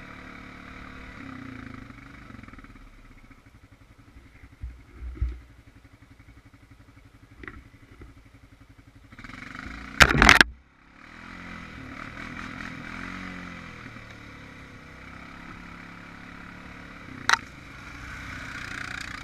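Honda Rancher 420 ATV's single-cylinder engine running and revving up and down while it churns through mud. There are a few dull thumps, a very loud burst of noise about ten seconds in, and a sharp knock near the end.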